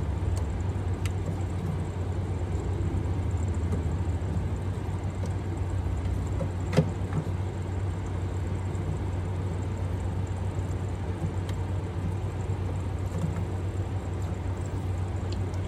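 Steady low hum throughout, with a single sharp plastic click about seven seconds in and a few faint ticks as a xenon bulb is worked against the bulb socket of a car headlight housing.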